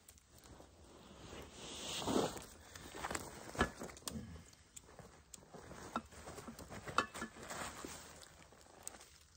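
Footsteps crunching and shuffling through dry leaf litter and twigs, with irregular rustling and a couple of sharp clicks.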